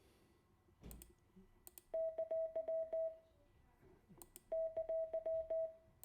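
Morse code for an exclamation mark (dah-di-dah-di-dah-dah) sounded twice as a steady single-pitch beep from a computer Morse translator. A few sharp clicks come before it, about one and two seconds in, and again before the second time.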